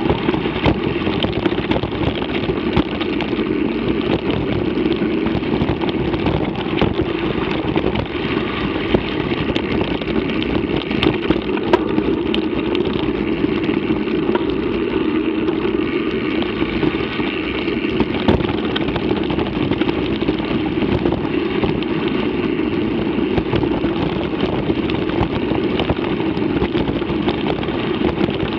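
Mountain bike riding over a rough dirt track, heard from a camera mounted on the rider: steady wind and tyre rumble, with scattered small knocks and rattles from the bumpy ground.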